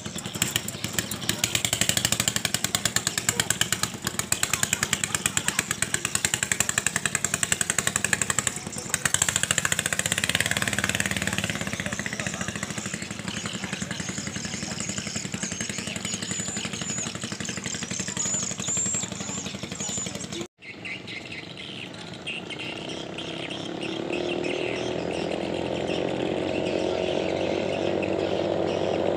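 Racing katinting longtail-boat engines running at high revs on the river: for the first several seconds a close engine with rapid firing pulses, then steadier as the boat pulls away. Later, fainter engines droning across the water, their pitch rising near the end.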